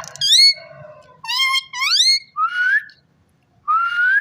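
Indian ringneck parrot whistling: a run of about five pitched whistled notes, most of them gliding upward, with a short pause before the last one.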